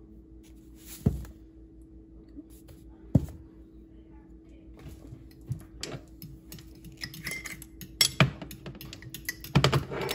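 A metal spoon knocking and scraping tomato paste out of a can, then clinking against a glass measuring cup while pizza sauce is stirred. Two sharp clinks a couple of seconds apart, then a busier run of clinks and scrapes toward the end.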